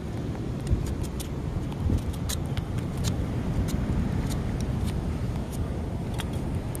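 Wind buffeting the microphone, a steady low rumble, with small sharp clicks scattered through it.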